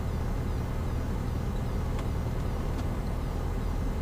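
Cessna 172's engine running at low power as the plane rolls out after landing, a steady low drone.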